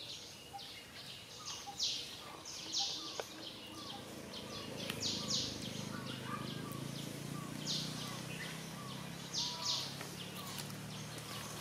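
Outdoor ambience of short, high chirps repeated irregularly, with a faint low hum starting about four and a half seconds in.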